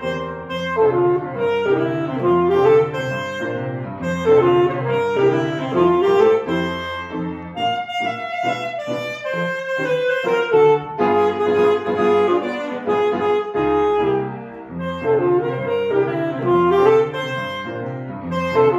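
Alto saxophone playing a swing melody with grand piano accompaniment. The sax moves in short up-and-down phrases and climbs higher for a passage in the middle.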